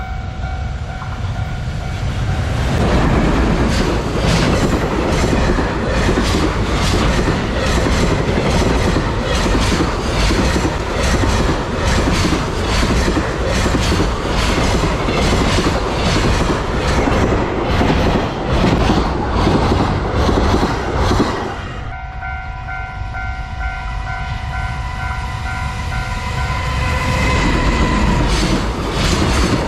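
Freight train hauled by an EF210 electric locomotive rolling past a level crossing, its wagons' wheels clattering over rail joints in a fast, steady clickety-clack. About 22 seconds in the clatter eases and the crossing's warning bell rings clearly. Near the end the rail noise builds again.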